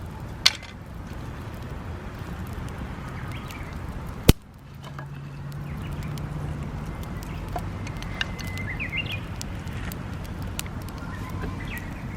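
Hinoki firewood crackling and popping in a campfire: scattered small clicks, a sharp pop about half a second in and a loud snap just after four seconds. Birds chirp in the background.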